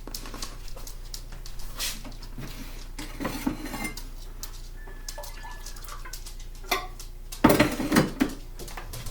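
Kitchen dishes and cutlery clinking and knocking in scattered short clatters, the loudest bunch about seven and a half seconds in.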